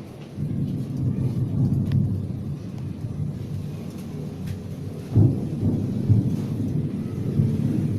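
Thunder rumbling in a long, rolling peal that begins about half a second in, with a sharper crack-like peak a little after five seconds, over faint rain.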